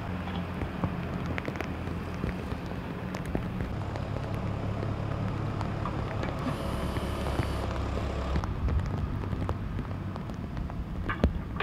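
Steady outdoor ambience of light rain, with scattered close drops ticking over a low rumble.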